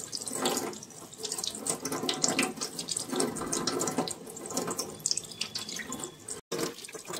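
Tap water running into a stainless steel sink, splashing unevenly over hands and small fish as they are rinsed under the stream. There is a brief gap near the end.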